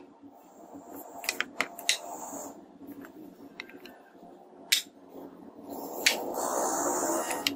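Wooden parts of a handmade wooden gun being set down and shifted on the carved wooden body: a few sharp wooden knocks, then a longer rustling slide of wood on wood near the end.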